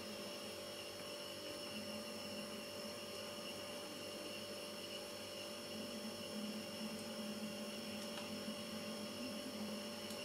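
Faint, steady electrical hum with thin high whines above it over a low hiss, unchanging throughout; the sauce being poured makes no distinct sound of its own.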